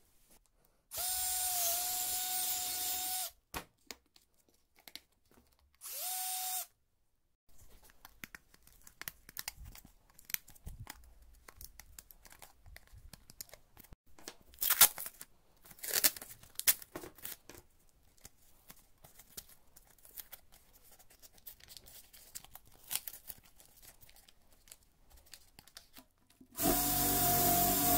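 Cordless drill running in two bursts, one of about two seconds with a slight dip in pitch and a short one of about half a second, followed by scattered light clicks and rustles of handling. Music comes in near the end.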